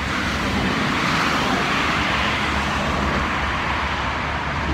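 Steady road traffic: cars passing with a hiss of tyres and engine noise, over a low rumble of wind on the microphone.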